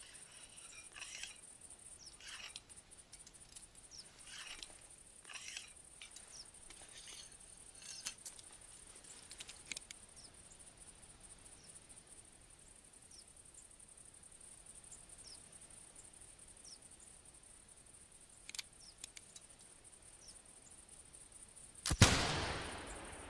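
.50-calibre caplock muzzleloader fired once near the end: a single sharp, loud report with a trailing echo. Before it come scattered small clicks and rustles, with two sharper clicks a few seconds before the shot.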